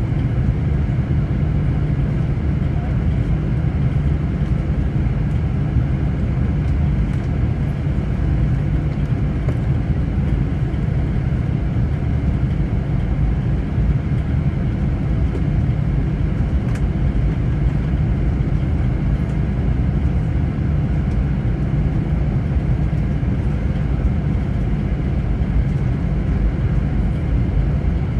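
Steady low rumble of jet engines and cabin noise heard inside an airliner's cabin as it taxis.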